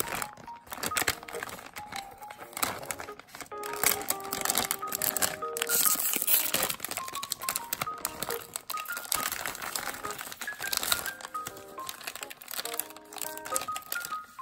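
Foil-lined plastic candy bag and foil-wrapped gummy candies crinkling as they are handled, over background music with a tune of short stepping notes.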